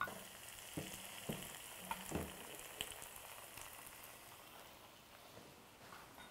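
Fresh shiitake mushroom caps sizzling faintly in oil in a frying pan. They are on their second, brief grilling after being brushed with seasoning paste. A few light knocks come in the first three seconds.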